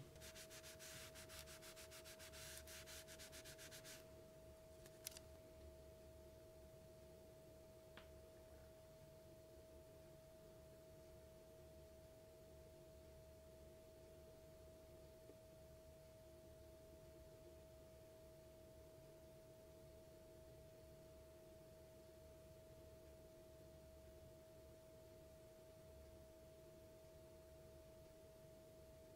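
A quiet room with a faint steady tone and a low hum throughout. For the first four seconds a hand rubs briskly across the felt work mat in quick scratchy strokes. Then come a couple of light ticks.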